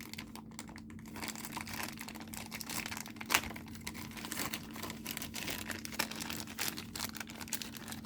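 Crinkling and rustling of plastic as building-set parts are opened and handled, with many small clicks and one sharper click about three seconds in, over a steady low hum.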